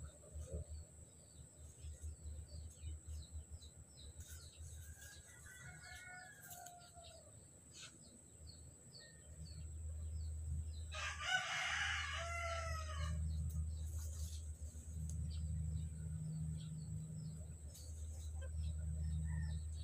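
A rooster crows once, loud and clear, about eleven seconds in, with a fainter call a few seconds earlier. A low rumble runs underneath.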